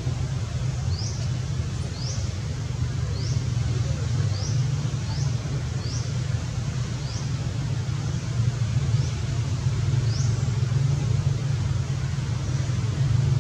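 Steady low rumble, with a bird's short high rising chirps repeated about once a second over most of the stretch.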